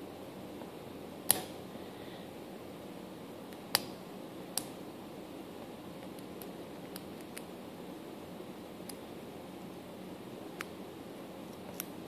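Five-pin brass CISA padlock being single-pin picked with a Peterson hook and tension wrench: a few sharp metallic clicks as the pick works the pins, the loudest about a second in, then fainter scattered ticks over a steady low hiss.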